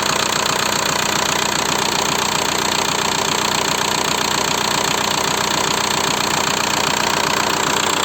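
Volkswagen-group 1.9 TDI four-cylinder turbodiesel idling steadily with a rapid knock, which the owner puts down to the hydraulic lifters and piston slap.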